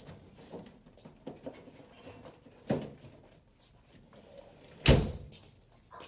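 Ambulance side compartment: a thud as the rolled Reeves stretcher goes into it, then, about five seconds in, the loud bang of the metal compartment door slamming shut, with a few light knocks between.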